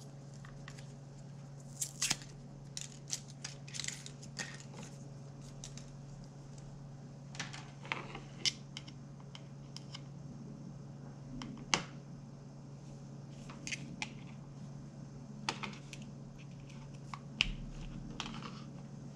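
Scattered light clicks and rustles of hands handling a charging cable and a small plastic remote, with the sharpest click near the middle, over a steady low hum.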